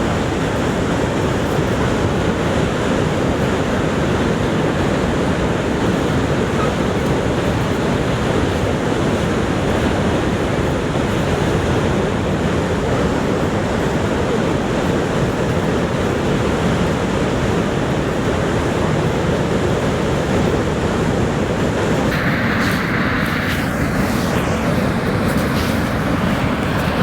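Steady, loud roar of Niagara Falls' falling water, an even rushing noise. About five seconds before the end the sound changes, with a brief higher hiss and some fainter scattered sounds on top.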